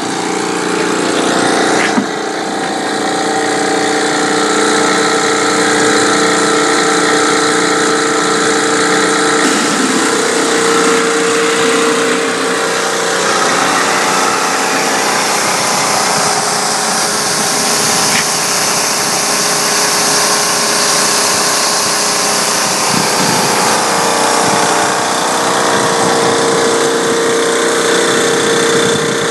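Spray rig's engine and pump running steadily while the spray gun discharges water into a plastic bucket with a steady hiss. This is the timed catch that measures how much the sprayer puts out per minute for calibration.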